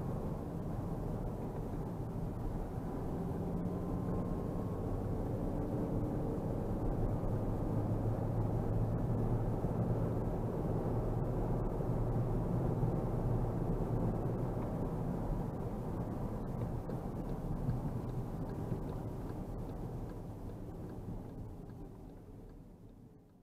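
Engine and tyre noise inside the cabin of a Škoda Superb II 3.6 V6 cruising along a road: a steady low rumble that fades out over the last few seconds.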